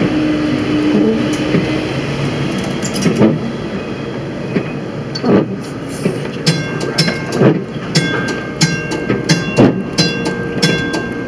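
Vintage streetcar running along its track: a steady rumble with knocks, and from about halfway through a run of quick ticks with a ringing metallic tone.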